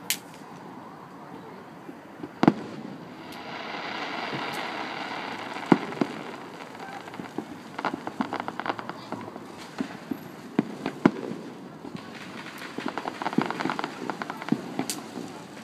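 Aerial fireworks going off: a sharp bang every few seconds as shells burst, with stretches of dense crackling between them.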